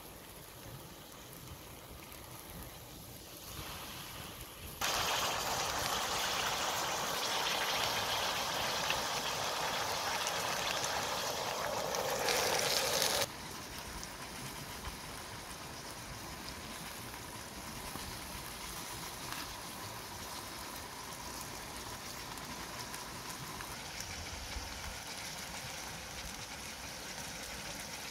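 Water pouring into a metal wok over duck pieces: a loud, steady gushing for about eight seconds that cuts off suddenly. After that comes a quieter, steady hiss with faint ticks while the lidded wok sits over a wood fire.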